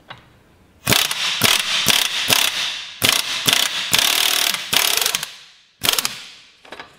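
Impact wrench hammering on a puller's centre screw, winding a seized bearing carrier out of an outboard gearbox. It runs in spurts from about a second in, with a short final burst near the end as the carrier comes free.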